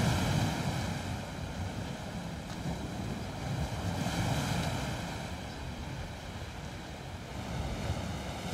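Soft, steady rush of surf-like noise that slowly swells and ebbs, like waves washing on a shore, laid in as an ambient sound effect.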